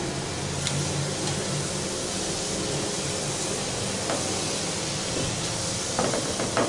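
Small pieces of maida dough sizzling steadily as they deep-fry in hot ghee in a steel karahi, with a couple of faint ticks.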